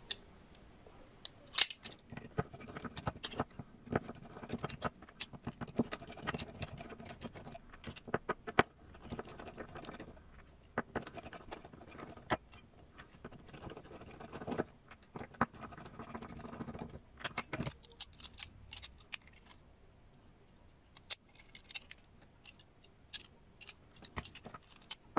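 A hex driver backing small screws out of SSD steel 1.9-inch beadlock wheels, with irregular light metallic clicks and clinks as screws and steel parts are handled and set down. The sharpest click comes about one and a half seconds in.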